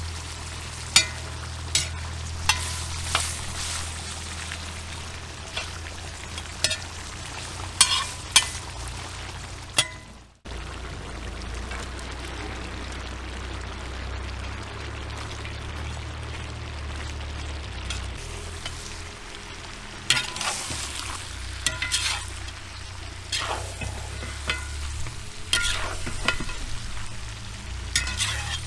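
Lamb, onion and then carrot frying in a kazan over high heat: a steady sizzle, with sharp knocks and scrapes of a metal skimmer against the pot as the food is stirred. The sound breaks off for a moment about a third of the way through.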